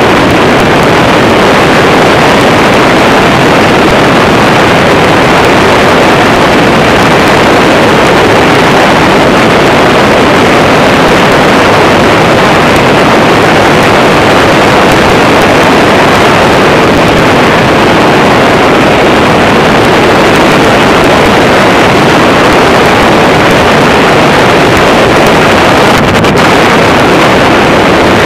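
Loud, steady in-flight noise aboard a powered hang-glider trike: the engine and pusher propeller running at cruise, mixed with wind rushing over the microphone, with no change in pitch.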